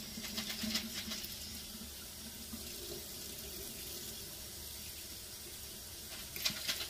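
Kitchen tap running steadily into the sink while dried Great Northern beans are rinsed, with a few brief knocks near the end.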